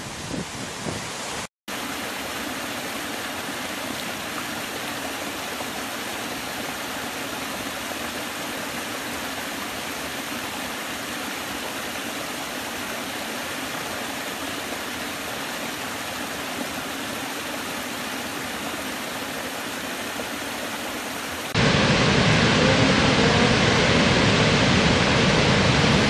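Water rushing steadily over the rock ledges of a small woodland stream cascade. About 21 seconds in it gives way to the louder, deeper, fuller rush of a large waterfall.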